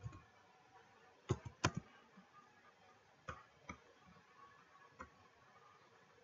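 Computer keyboard and mouse clicks: about four quick keystrokes close together around a second and a half in, then a few single clicks spaced out, the last about five seconds in, as the form is submitted.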